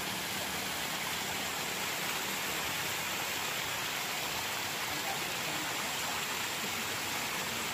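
A steady, even hiss of outdoor background noise with no breaks or distinct events.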